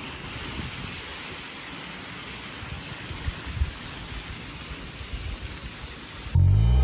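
Water spilling over the concrete weirs of a tiered fountain into the pools below, a steady splashing rush. Loud music cuts in abruptly near the end.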